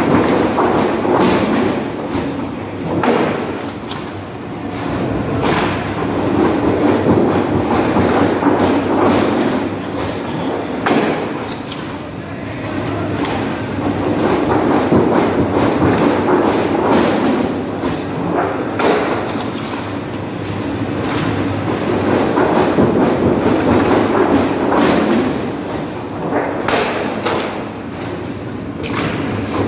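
Sheet-corrugating roller machine running, a steady mechanical rumble from its rollers and gear drive, with repeated clanks and thumps of thin galvanized steel sheets being handled and stacked.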